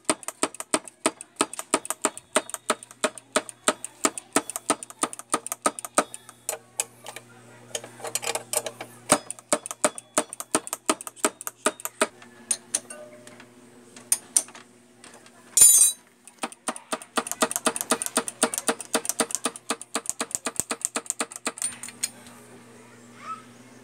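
Rapid light metallic clicking, about four to five clicks a second, in long runs with a pause in the middle. A single short, loud burst of noise comes about sixteen seconds in.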